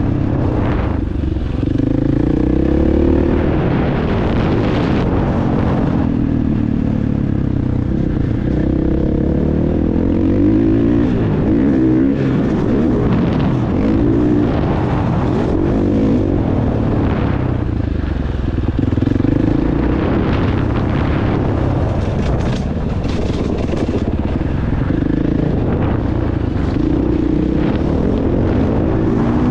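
Motocross bike engine running hard, revving up and dropping back again and again as it accelerates and shifts.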